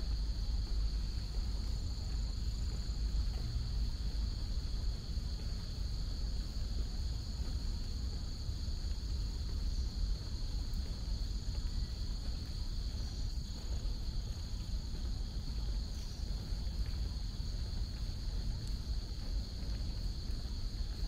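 Steady, high-pitched chorus of crickets and other insects, unbroken throughout, over a low rumble.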